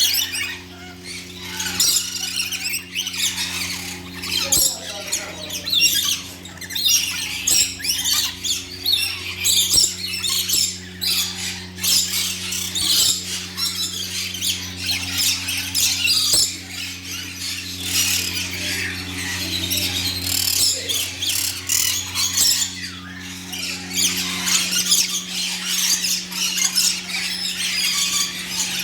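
A flock of small birds chirping and squawking constantly over one another, over a steady low hum.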